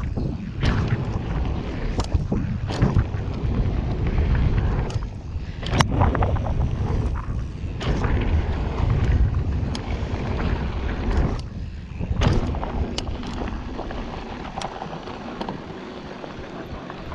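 Wind rushing over the microphone of a camera on a mountain bike being ridden fast down a trail. Irregular sharp knocks and rattles from the bike running over rough ground come through the wind.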